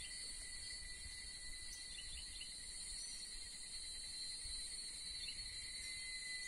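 Steady insect chorus, several high, level drones going on together, with a few short bird chirps over it and a faint low rumble.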